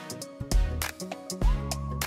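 Background music with a steady beat: drum hits over bass notes, and a melody line that slides up about one and a half seconds in.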